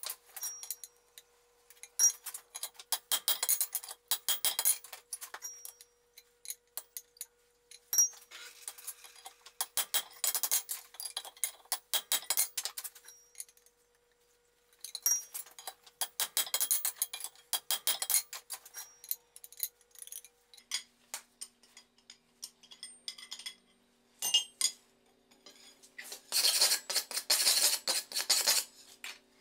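Hand hammer forging a red-hot iron bar on an anvil: runs of quick blows that ring out, several seconds of hammering at a time with brief pauses between.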